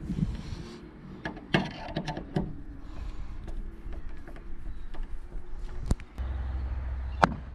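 Hand screwdriver driving screws through a mirror bracket into a metal car door: scattered small clicks, taps and scrapes, with one sharp tap near the end. A low steady rumble sets in after about six seconds.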